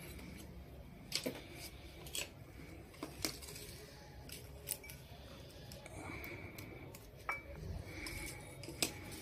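Scattered light clicks and taps from wires, a small metal-cased LED driver and a soldering iron being handled on a workbench, about half a dozen sharp clicks over a low steady background hum.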